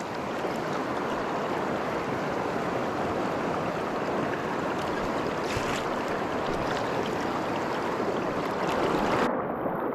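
Steady rushing of a fast river current, the Deschutes flowing heavily around a wading angler. The sound turns duller near the end.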